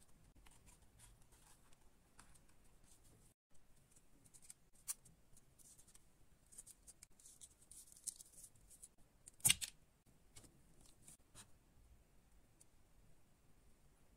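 Close handling of paper and cardboard pieces: faint rustles, scrapes and small clicks, with one sharp click about nine and a half seconds in.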